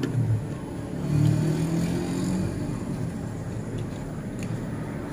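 Road traffic: a passing vehicle's engine rumble that swells about a second in, then settles into a steady low drone.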